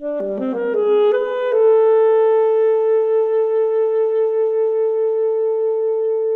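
Film score on a woodwind instrument: a quick run of short notes, then one long held note with a gentle waver.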